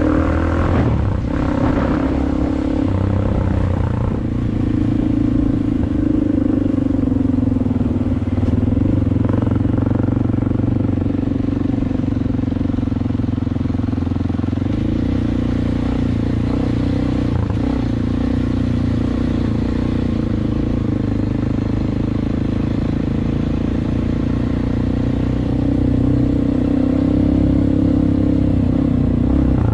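Dirt bike engine running steadily under way, its pitch dipping briefly a few seconds in and rising again near the end.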